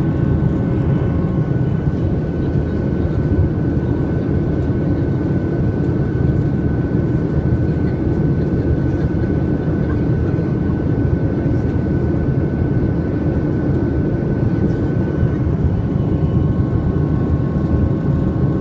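Steady cabin noise of a jet airliner in flight: a dense, even rush of engines and airflow. A few faint steady whining tones sit on top; the highest fades out near the end.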